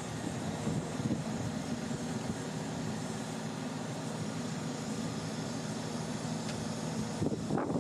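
An engine running steadily with a low, even hum, which breaks off near the end as a louder, rougher noise takes over.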